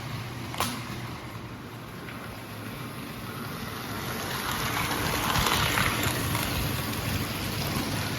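Gilbert American Flyer S-gauge model train running on its track, a steady rumble that swells as it comes closest about five to six seconds in. Two sharp clicks sound near the start.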